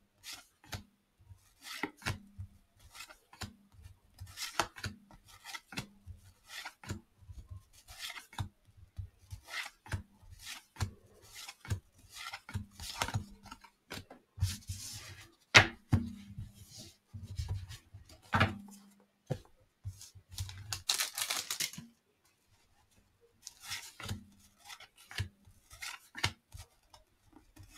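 1989 Fleer baseball cards being flipped through by hand, card stock sliding and flicking against card in short, irregular strokes, with a longer, brighter rustle about three-quarters of the way through.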